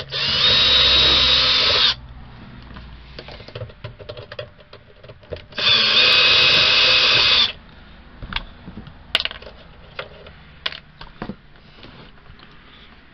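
Cordless drill/driver running in two bursts of about two seconds each, a steady motor whine, as it turns the screws of an RV power converter's sheet-metal cover. Light clicks and rattles of handling come between and after the bursts.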